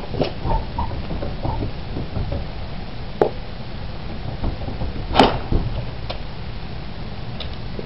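A wooden stable door being handled and opened: scattered knocks and clatters, the loudest a sharp bang about five seconds in, over a low steady rumble.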